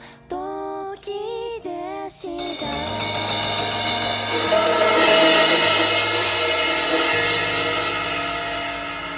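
Pop-rock song with a sung line, then a drum kit's crash cymbals and a full-band final chord that swell for a few seconds and slowly ring out.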